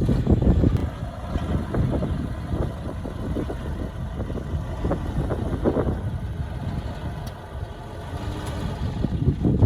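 Diesel engine of heavy earthmoving machinery running with a low rumble that eases about two-thirds of the way through and builds again near the end.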